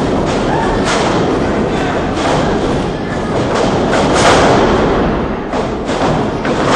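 Pro wrestlers hitting the ring mat in a run of thuds, the heaviest about four seconds in, over shouting and chatter from a small crowd.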